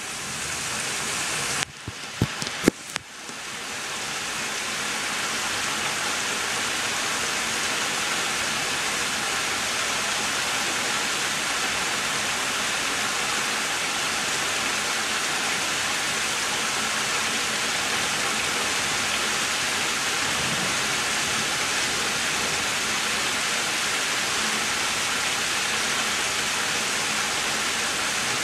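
Heavy thunderstorm rain falling steadily, a dense even hiss. About two seconds in, the sound drops out briefly a few times with sharp clicks before the rain settles back in.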